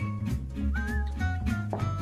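Upbeat jazzy background music with plucked strings over a bass line that steps from note to note, and a lead melody that slides in pitch.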